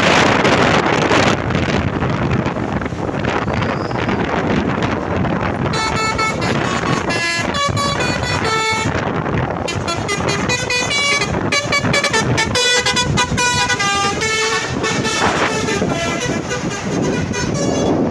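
Indonesian bus 'telolet' horn, a Basuri V3 multi-tone horn, playing a run of short tones that jump up and down in pitch like a tune, starting about six seconds in. Before it, and under it, is a steady rumble of bus engine and wind noise.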